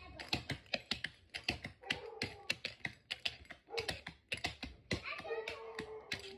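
Clogging shoes with metal taps striking a hardwood floor in fast, irregular strings of sharp clicks, a clog-dance step routine.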